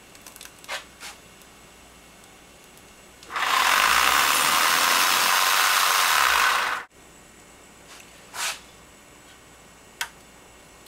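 A Dremel rotary tool spinning up the turbine of a homemade soda-can jet engine: a loud, steady, hissy whir that starts about three seconds in, runs for about three and a half seconds and cuts off abruptly. A few light knocks come before and after it.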